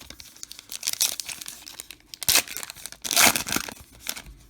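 Foil wrapper of a Topps Chrome trading-card pack being torn and crinkled in several rustling bursts, loudest about two and three seconds in.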